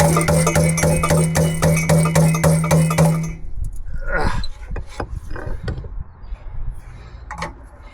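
Angle grinder running with an even, pulsing hum, cutting through the rusted exhaust pipe, then switched off about three and a half seconds in. Scattered metallic knocks and clicks follow.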